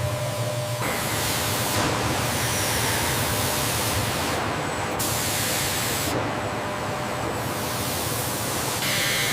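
Machine-shop noise from CNC milling: a steady, loud hiss like coolant spray over a low hum, its tone changing abruptly several times.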